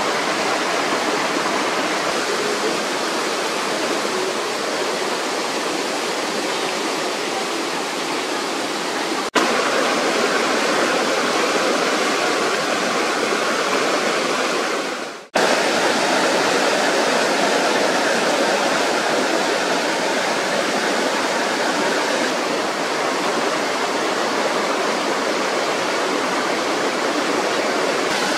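Rushing white water of a rocky stream cascading over boulders, a steady, full rush that breaks off for an instant twice, about 9 and 15 seconds in.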